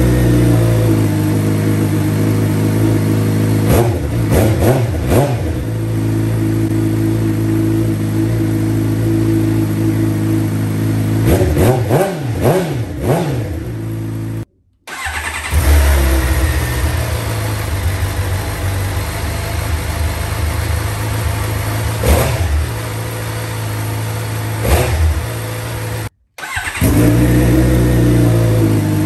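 2020 Suzuki GSX-R750's inline-four engine idling through an M4 slip-on short exhaust, revved in short blips several times. The sound cuts out briefly twice, then comes back idling.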